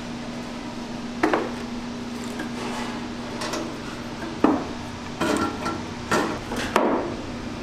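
Split firewood knocking as the pieces are set down and stacked on a metal smoker's wire grate: one sharp knock about a second in, then a run of wood-on-wood clunks over the last three seconds, over a steady low hum.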